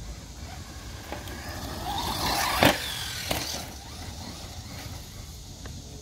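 Traxxas Slash 4X4 Ultimate RC truck's brushless electric motor whining and rising in pitch as the truck speeds up close by. A sharp knock, the loudest sound, comes about two and a half seconds in, with a smaller knock under a second later.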